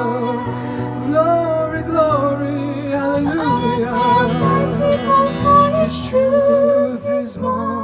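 Music: a hymn arrangement with a wavering, vibrato melody line over sustained accompaniment.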